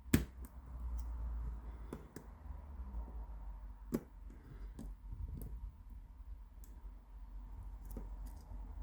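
Small, scattered metal clicks from an 8-pin tubular cam lock being picked with improvised tools, with the pick working the pins under tension. There is a sharp click right at the start and another loud one about four seconds in, over a low handling rumble.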